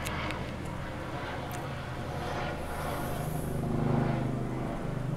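Helicopter flying overhead: a steady low drone of rotor and engine that grows louder about four seconds in.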